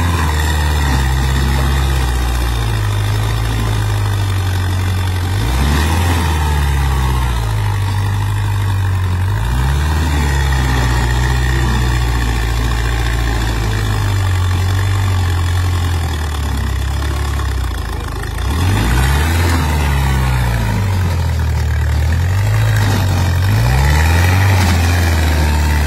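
Farmtrac tractor's diesel engine working under load as it pulls a heavily loaded sugarcane trolley, its note dropping and climbing again several times as the revs change.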